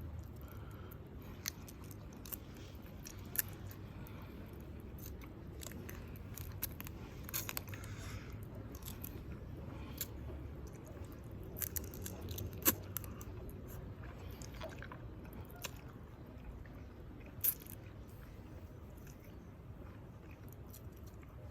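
A person eating shellfish, chewing and cracking shells, heard as scattered sharp cracks and clicks over a low steady background.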